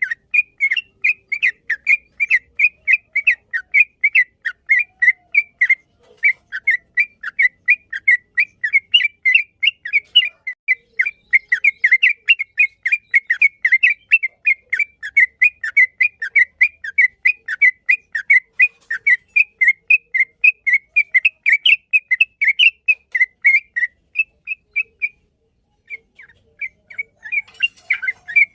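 Yellow-vented bulbul singing a long, fast run of short whistled chirps, about four to five notes a second, with one brief break near the end before the run resumes.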